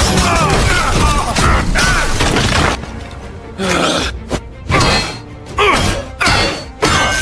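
Cartoon fight soundtrack: music with crashes and hits. It is dense and continuous for the first few seconds, then gives way to a string of separate short impacts.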